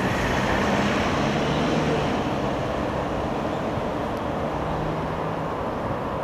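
Steady rumble of passing vehicles, loudest in the first two seconds and then easing slightly.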